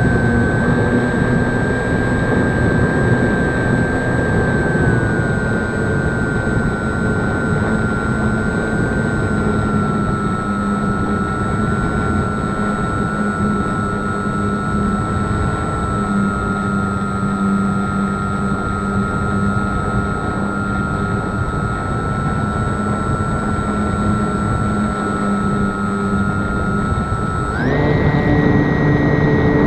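Cessna 152's four-cylinder piston engine and propeller running steadily. The note drops a little in small steps, then rises quickly near the end as engine speed picks up.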